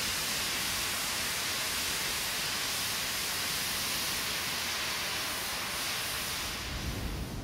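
Safety valves of South Maitland Railways steam locomotive No. 24 blowing off, a steady, loud hiss of escaping steam that eases slightly near the end. It is the sign that the boiler has reached full working pressure.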